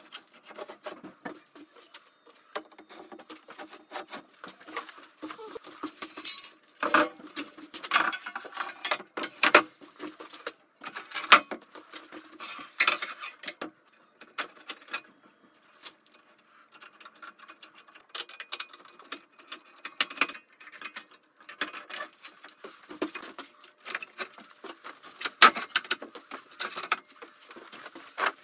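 Irregular metallic clinks, taps and knocks of hardware being handled and fitted onto an aluminium-extrusion machine frame, with a few louder knocks among them.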